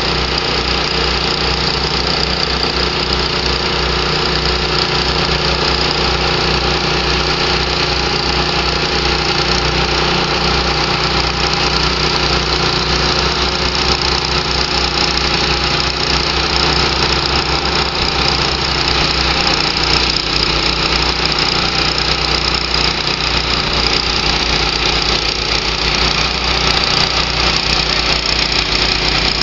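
John Deere backhoe loader's diesel engine running steadily and loudly close by while it tows a loaded boat trailer up the ramp.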